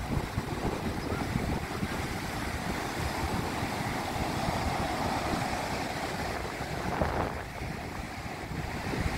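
Ocean surf breaking and washing up the beach in a steady rush, with wind buffeting the microphone in uneven low rumbles.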